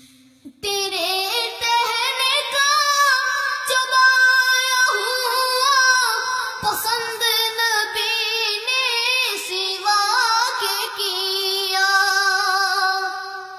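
A boy singing a devotional nasheed solo, with long held, wavering notes and runs; his voice comes in about half a second in.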